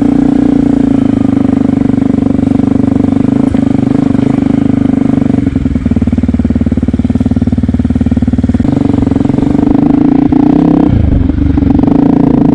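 Yamaha WR125X's single-cylinder four-stroke engine running steadily while the motorcycle is ridden. The note turns rougher and lower for a few seconds about halfway through and shifts again near the end.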